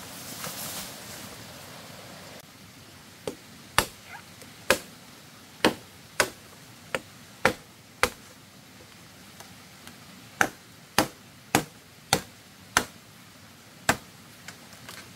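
About fourteen sharp chopping strikes, roughly two a second, with a short pause about halfway through, starting about three seconds in.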